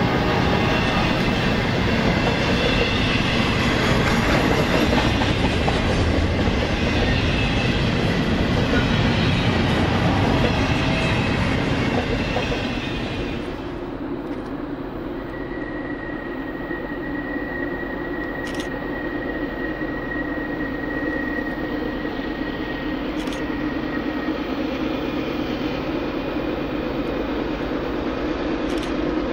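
Double-stack intermodal freight train rolling past, a loud steady rumble and rattle of wheels and well cars. About halfway through it gives way to a quieter, steadier low diesel rumble of a train approaching around a curve, with a thin high squeal lasting several seconds.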